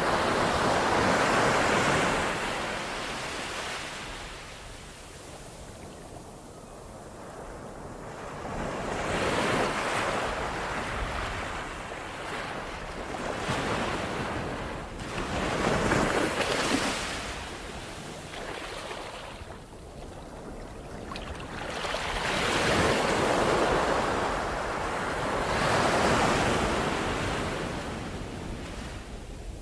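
Ocean waves breaking and washing on the shore in surges every few seconds, each swelling and then falling away, with some wind on the microphone.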